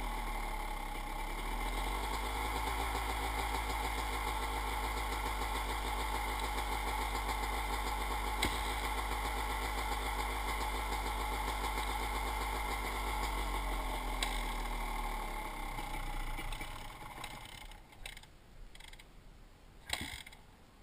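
Dirt bike engine running steadily, its pitch dipping in the first couple of seconds, then fading out and stopping about sixteen seconds in. A few light knocks follow, the sharpest near the end.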